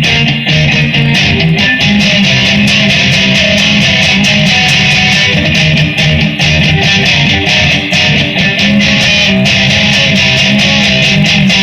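Electric guitar strumming chords in a fast, even rhythm, an instrumental passage with no singing.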